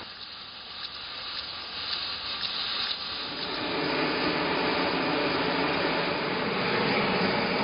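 Steady hiss of a gas flame burning against the steel side of an old railway passenger carriage. It swells over the first few seconds, then holds level.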